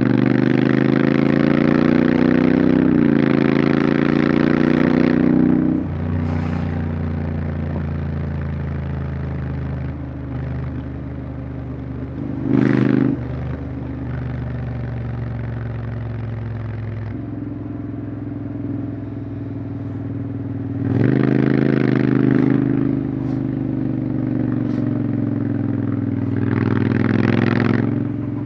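Honda X-ADV 750 parallel-twin engine under way, rising in pitch as it accelerates, with a step down in pitch about three seconds in as it changes gear, then running more quietly at a steady cruise. It pulls up in pitch again briefly just under halfway through, for a longer spell about three-quarters in, and once more near the end.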